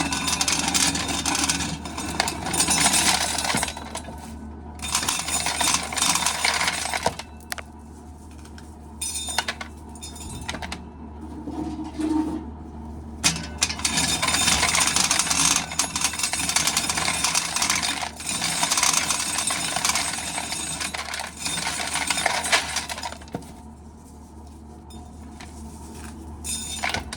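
Dried corn kernels rattling and clinking into a pail in repeated spells as ears of corn are shelled.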